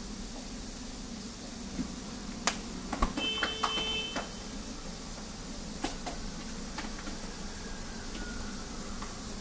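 Steady low hum of cooking equipment at a hot griddle, with a few sharp clicks and taps of utensils. A short electronic beep sounds for under a second a little over three seconds in.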